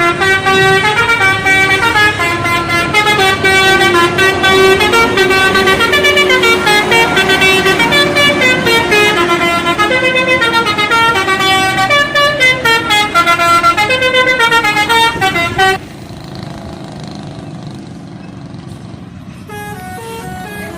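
Bus telolet horn playing a fast, stepping multi-note melody over a held lower tone, loud for about sixteen seconds before cutting off suddenly. A fainter telolet melody starts again near the end.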